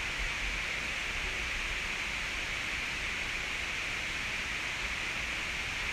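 Steady outdoor background hiss, strongest in a high band, over a faint low rumble; no distinct sound stands out.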